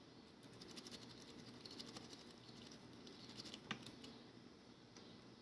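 Faint, quick metal ticks of a lock pick and tension wrench working the pins inside a Sparrows progressive pin-tumbler lock, with one sharper click about three-quarters of the way in.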